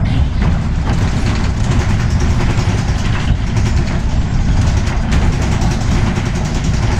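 Cabin noise of a Solaris Urbino 18 Electric articulated bus under way: a steady low rumble of road and running gear, with a faint steady hum.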